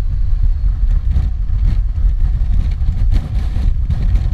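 Honda Crosstourer's V4 engine running under way, heard as a loud, ragged low rumble through a GoPro Hero 4's built-in microphone with no external mic.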